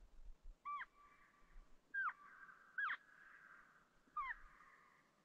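Elk call sounding four short, high mews about a second apart, each a quick squeal that drops in pitch, with a fainter drawn-out tone between them. This is elk calling used to lure wolves, which favour elk as prey.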